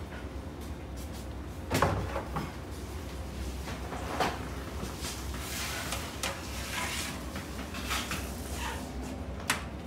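Knocks and clatter of a metal baking tray and tongs as loaves are moved about on it, the loudest knock about two seconds in, over a steady low hum.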